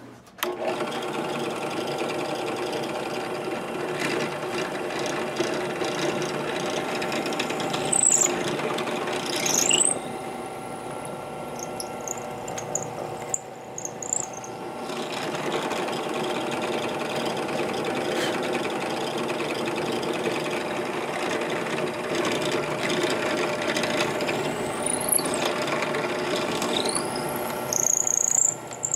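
Electric drill boring holes through a solid wooden guitar body. The motor runs steadily as the bit cuts, with a few brief high rising squeals and a short letup partway through.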